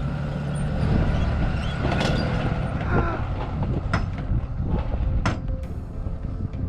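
Dodge Ram Cummins diesel pickup with a truck camper driving over a potholed, unpaved road: a steady low rumble with several sharp knocks and rattles as it hits the holes.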